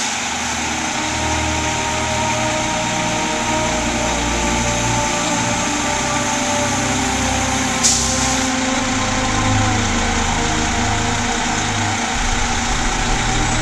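Diesel engines of fire engines running at idle as the rigs creep forward out of the station bays. About eight seconds in, a short air hiss, typical of an air-brake release.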